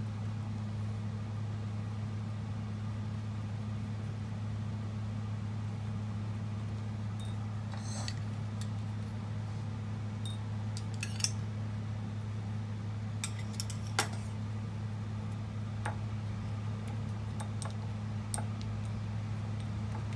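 A steady low hum throughout, with a handful of light, sharp clicks and taps of a small spoon and utensils against a small ceramic bowl while food is stirred in it, two of them louder about halfway through.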